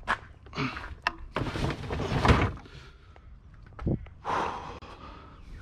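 A heavy piece of scrap being handled and loaded: a few sharp knocks, a scraping clatter with a loud bang about two seconds in, a dull thump near four seconds, then another scrape.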